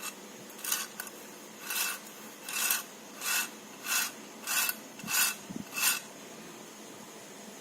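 Metal crawler tracks of a 1:50 diecast Komatsu PC200-10 excavator model rolled back and forth across a surface, about eight short scraping strokes a little over half a second apart, stopping about six seconds in. The tracks run freely without sticking.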